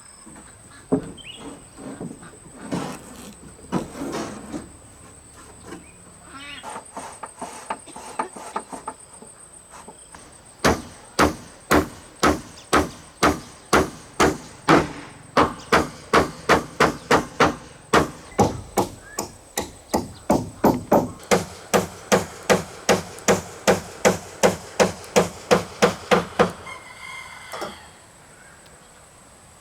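Hammer driving nails: a few scattered knocks, then a long run of steady, even blows, about two a second, each with a short metallic ring, stopping near the end.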